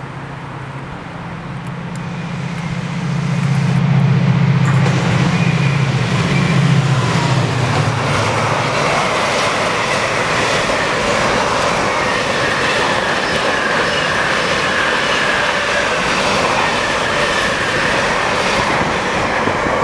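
A Class 68 diesel locomotive, with its Caterpillar V16 engine, passing at speed. Its low engine drone builds over the first few seconds and fades by about nine seconds in. A long train of container wagons follows, rumbling past with a steady wheel-on-rail roar and high squealing wheel tones.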